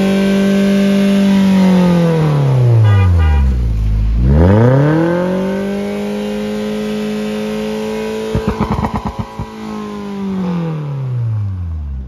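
Toyota Premio's inline four-cylinder engine revved through an aftermarket remote-control valved exhaust. It is held at high revs, drops right back to idle, is revved again and held, and falls away near the end. After the second rev there is a quick run of about eight pulses.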